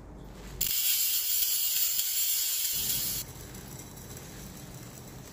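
Plastic bag of dried lemongrass herbs and bath salt rustling as the mix is tipped and poured into a glass jar: a loud, even hiss from about half a second in that stops suddenly after about three seconds.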